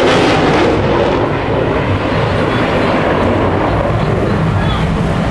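Jet fighter's engines roaring loudly as it flies a display pass overhead. The high hiss thins after about a second, leaving a steady deep rumble.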